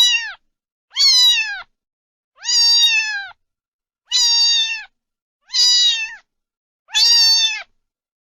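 A cat meowing over and over: about six long meows, one every second or so, each dropping in pitch at its end, with silence between them.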